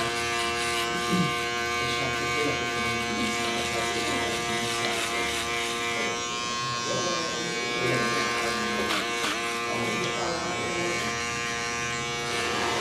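Electric beard trimmer running with a steady buzz.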